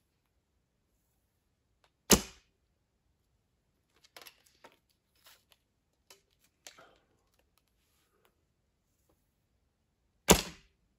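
Two shots from a Turkish-style recurve bow loosed with a thumb ring, about eight seconds apart. Each is a single sharp crack of the string released at full draw, with a short tail. Between the shots come faint clicks and rustles of an arrow being nocked.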